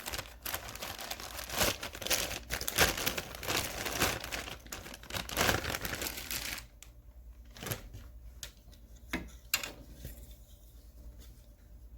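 Plastic packaging crinkling and tearing as new plastic socket holders are unwrapped, going quieter about six and a half seconds in, with a few scattered clicks and taps of the parts being handled.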